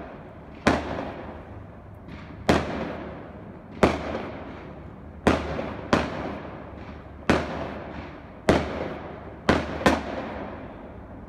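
Aerial fireworks bursting overhead: about nine sharp bangs, roughly one a second with a quick double near the end, each trailing off in a rolling echo.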